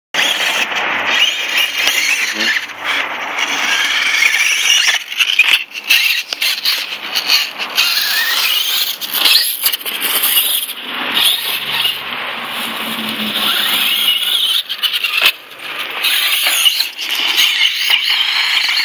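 Radio-controlled Traxxas LCG Slash truck driving on a dirt track, its motor giving a high-pitched whine that rises and falls with the throttle, with a brief drop in level about 15 seconds in.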